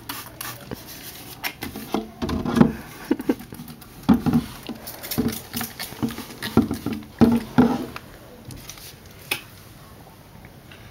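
Handling noise: irregular light taps, clicks and rubbing close to the microphone as a handheld phone is moved around a glass tank.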